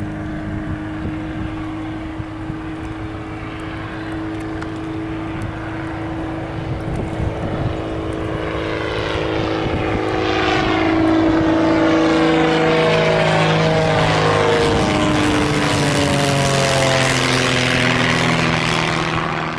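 Lancair 320's 160 hp four-cylinder Lycoming O-320 engine and propeller running at takeoff power, a steady droning buzz that grows much louder from about eight seconds in and stays loud to the end.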